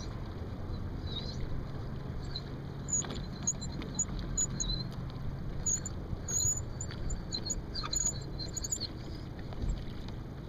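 Small sailboat moving through choppy water: water slapping and gurgling against the hull, with some wind noise. From about three seconds in, a run of short, high squeaks or chirps comes and goes over the water noise.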